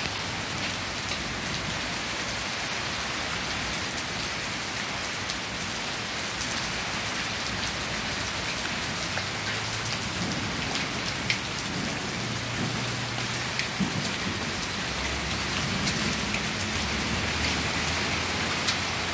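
Heavy downpour: a steady hiss of rain with many sharp ticks of drops striking close by. A low rumble of thunder runs under it in the second half.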